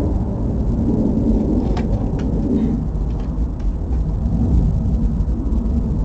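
Wind buffeting the camera's microphone: a loud, uneven low rumble, with a couple of faint clicks about two seconds in.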